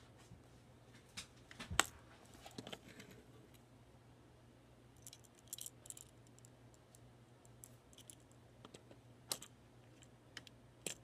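Plastic Lego pieces being handled and pressed together: scattered sharp clicks and taps, the loudest about two seconds in, over a faint steady low hum.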